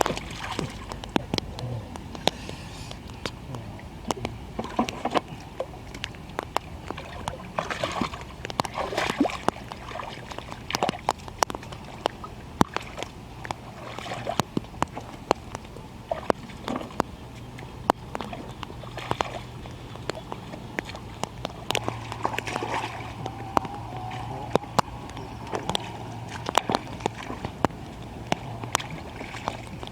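Shallow pond water sloshing and splashing as hands work through it, with many small sharp splashes and drips throughout.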